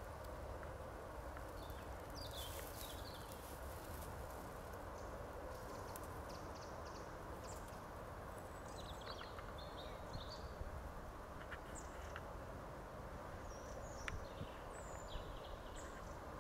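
Open-meadow ambience: a steady low background hiss with scattered short, high chirps now and then, and a few light clicks and taps, loudest near the end.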